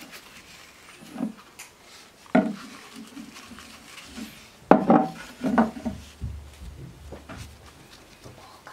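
Handling knocks and clinks of a glass jar of care cream and a knife on a wooden workbench as cream is taken out with a cloth, a few sharp knocks with the loudest cluster about five seconds in.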